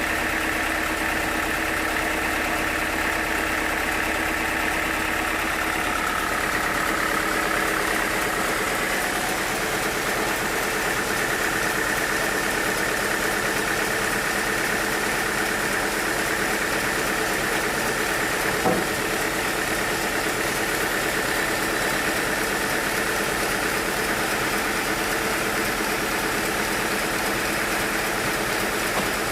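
Sawmill machinery running steadily, its pitch shifting about seven seconds in, with one brief knock about two-thirds of the way through.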